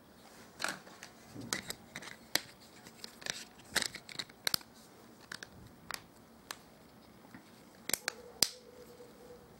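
Battery and plastic back cover being fitted by hand into a Lenovo A6000 smartphone: a run of sharp plastic clicks and scrapes, the loudest snaps near the end as the cover is pressed home.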